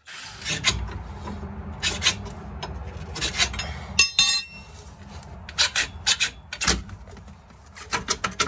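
A steel coil spring being worked out of a car's rear suspension by hand. Irregular metal scraping and rubbing, with a short ringing clink about four seconds in and a run of sharp knocks in the second half.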